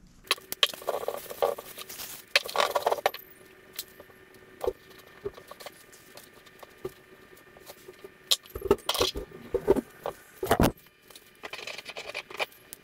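Steel differential parts clinking and knocking as gloved hands handle them and set them down on the workbench and into a vise, in irregular clusters of sharp clicks with rustling between.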